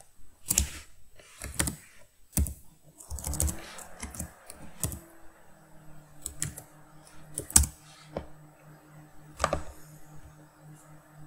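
Scattered clicks of typing at a computer keyboard, irregularly spaced about a second apart. A faint steady low hum comes in about three seconds in.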